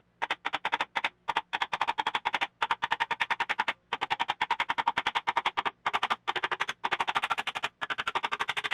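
Hand ratchet wrench clicking fast, worked in quick strokes to run a small nut or bolt, in bursts with short pauses.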